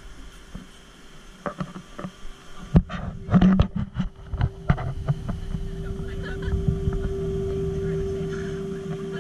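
A few knocks and clatter, then a steady electrical hum comes in about three seconds in and swells louder over the next few seconds.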